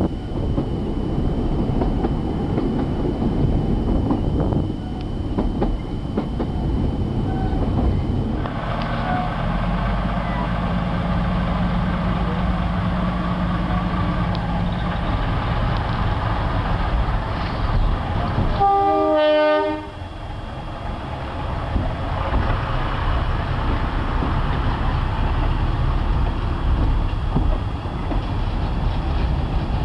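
Steady running noise of a narrow-gauge train, then after a change a diesel locomotive's steady low engine hum, and one horn blast of about a second, the loudest sound, two-thirds of the way through.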